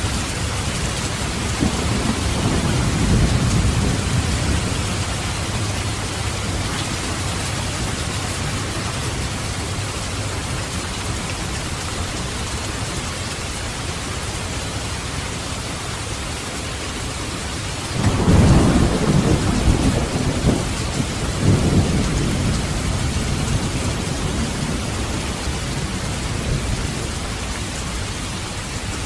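Steady heavy rain falling, with low rolling thunder a couple of seconds in and a louder, sharper thunderclap about two-thirds of the way through that rumbles off over several seconds.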